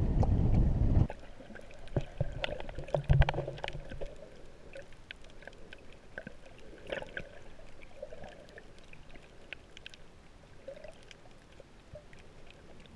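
Wind rumbling on the microphone for about the first second, then quieter water sounds: faint gurgles with scattered clicks and pops.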